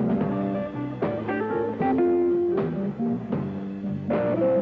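Live blues music led by guitar, playing a run of changing notes with a steady beat underneath.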